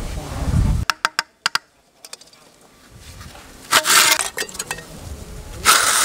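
Hand masonry work on fresh cement and a concrete coping slab: a low rubbing at first, a few sharp clicks about a second in, then two short bursts of gritty scraping as the slab is worked into the mortar.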